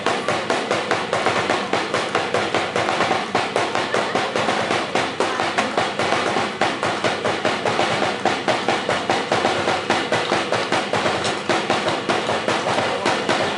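Drum-driven Sinulog dance music, a fast steady percussion beat.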